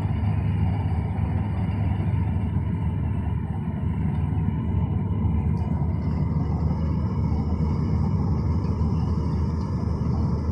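Claas Crop Tiger combine harvester running under load, its engine giving a steady low drone that holds level throughout.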